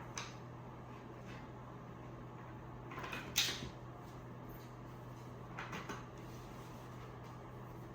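Bed-frame panels and parts being handled and set against each other: a few short knocks and clicks, the sharpest about three and a half seconds in and another small cluster around six seconds, over a steady low hum.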